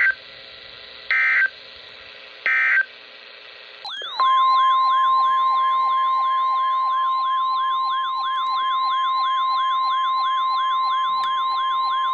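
Emergency Alert System signalling: three short bursts of SAME digital data about a second apart, then, about four seconds in, the steady 1050 Hz weather-radio alert tone, overlaid with a rising siren-like sweep repeating about twice a second, both held for about nine seconds.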